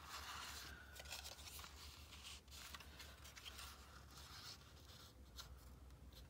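Faint rustling and rubbing of paper being folded and pressed by hand, in short irregular bursts.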